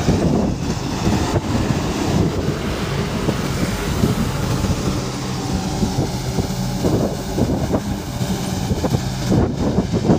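Excavator diesel engine running steadily under working load as the machine digs and swings mud, with wind buffeting the microphone.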